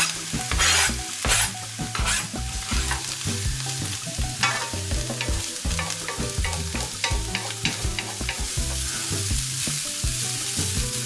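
Chopped onions and garlic sizzling in olive oil in a frying pan while being stirred, with repeated scrapes of the utensil against the pan.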